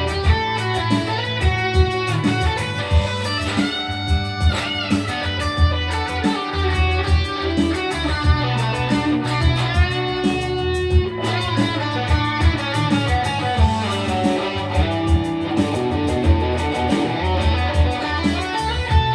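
Electric guitar music over a steady beat, with wavering bent notes about four seconds in and again about ten seconds in.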